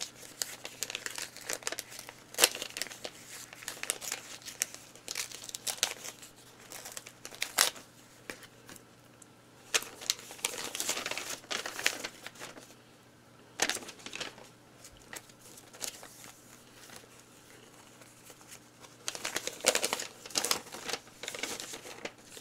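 Sheets of paper rustling and crinkling as they are handled and unfolded, in irregular bursts of sharp rustles that ease off for a few seconds about two-thirds of the way through.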